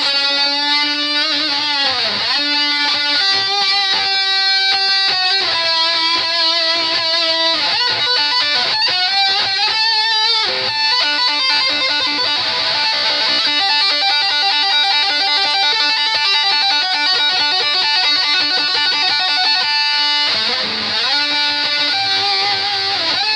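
Live rock band playing, led by electric guitar with many bent and sliding notes.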